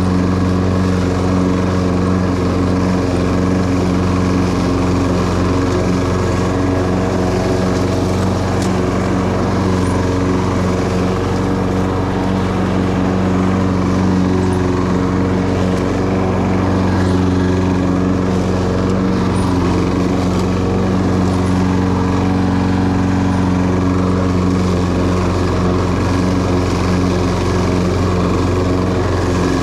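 Self-propelled Toro Personal Pace lawn mower's Briggs & Stratton 190cc single-cylinder engine running steadily at constant speed while mowing, with no change in pitch.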